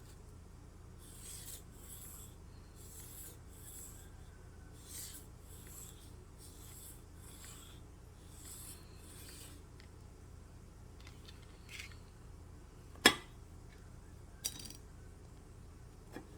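Cold Steel Kobun tanto blade stroked across a whetstone: about a dozen short rasping strokes, often in pairs, during sharpening. Later comes a sharp click, followed by two fainter ones.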